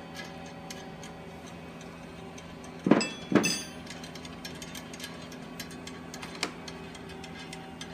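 Hand tools working on the reactor's fittings while they are tightened: scattered light clicks and ticks, two loud knocks half a second apart about three seconds in, and a smaller knock later, over a steady room hum.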